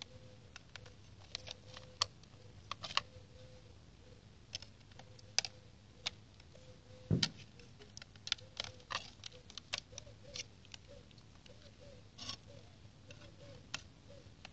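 Irregular light clicks and taps from a hand-held model multirotor being handled and tilted, with one louder thump about seven seconds in. A faint steady tone runs underneath and breaks into short repeated blips in the second half.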